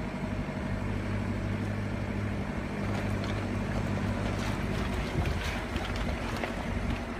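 Off-road 4x4's diesel engine running at low speed, a steady hum that fades about four and a half seconds in, with stones crackling and knocking under the tyres on a rocky track.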